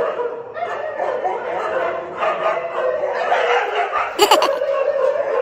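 Laughter mixed with caged husky-type dogs vocalizing, with one sharp knock about four seconds in.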